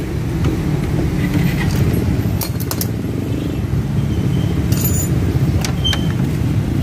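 A steady low engine rumble, with a few sharp metallic clinks of hand tools on the van's front brackets about midway and near the end.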